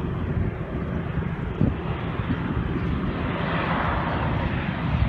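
Jet airliner on final approach, its engine noise growing louder as it nears, over a gusty low rumble of wind on the microphone.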